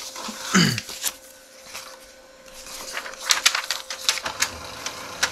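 Sheets of paper being handled and loaded into the pulled-out paper tray of a Brother DCP-7030 laser printer: rustling with a quick series of sharp clicks and clatters over the second half. A faint steady tone runs underneath.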